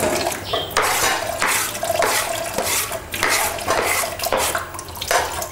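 Tap water splashing over a wooden cutting board and knife as they are rinsed and scrubbed in a kitchen sink, coming in irregular surges as the board is moved under the stream.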